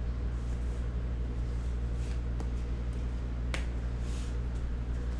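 Light clicks and taps of card handling: a trading card in a rigid plastic top loader is handled and a card is set down on the table mat. A few short clicks, the clearest about three and a half seconds in, over a steady low hum.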